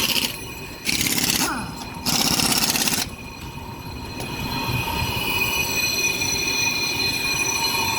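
Brake lathe skimming a brake disc, the cutting tool on the metal giving a steady high-pitched squeal. Two short bursts of hissing noise come about one and two seconds in.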